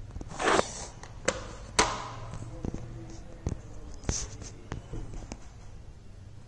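Handling noise from the recording phone: a brief rubbing rush about half a second in, then scattered sharp clicks and knocks over a steady low hum.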